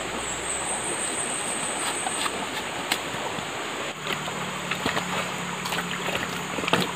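Water of a small jungle stream running, a steady rush, with scattered sharp clicks and knocks from about two seconds in.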